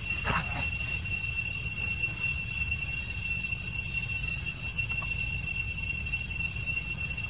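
Forest ambience: a steady high-pitched drone, the kind cicadas and other insects make, over a low rumble. A brief falling call sounds about a third of a second in.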